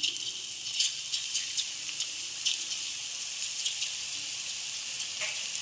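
Drops of gram-flour batter frying in hot oil as boondi. It is a steady high sizzling hiss with scattered small crackles.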